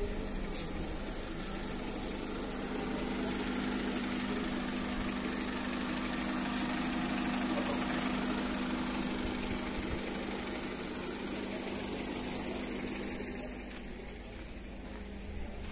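Honda City engine idling steadily during engine decarbonisation, with the carbon-cleaning hose fed into its air intake.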